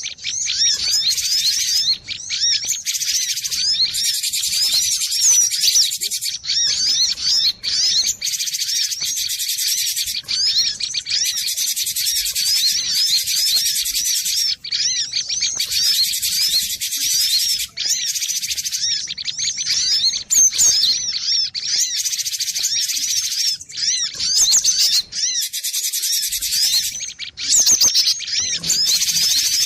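Cinereous tit (gelatik batu) singing and calling: fast, high-pitched chirps and twitters that repeat almost without a break, with only a few short pauses.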